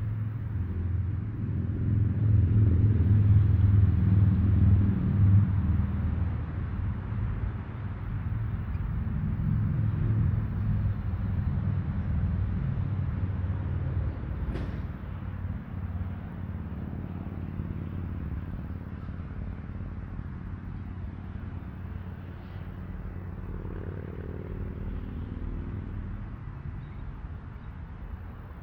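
Brightline passenger train passing, its Siemens Charger diesel locomotive and wheels making a low rumble that is loudest a few seconds in and then slowly fades as the train moves away.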